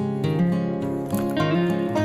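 Background music: plucked and strummed acoustic guitar.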